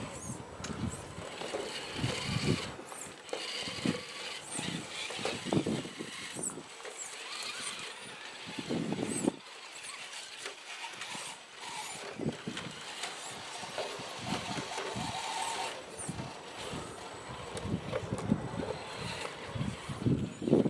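Radio-controlled scale crawler truck's electric motor and gearbox whining in spells as it creeps over logs and rocks, with irregular knocks from its tyres and chassis against them.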